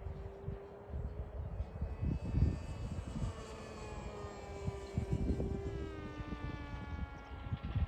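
Electric RC model airplane's motor whining in flight, steady at first and then falling in pitch over the last couple of seconds as it passes, with wind buffeting the microphone in gusts.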